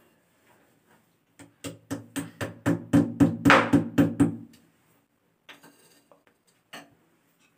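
A hammer tapping plastic rawl plugs into holes in a ceramic wall tile: about a dozen quick knocks, roughly four a second, starting about a second and a half in, followed by a couple of faint clicks.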